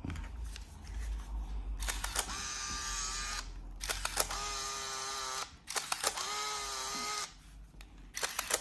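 Olympus AM100 compact 35mm camera fired over and over: each time a shutter click, then about a second of its motor whirring as it winds on the film. This repeats three times about two seconds apart, with a fourth starting at the end, as the roll is run through frame by frame.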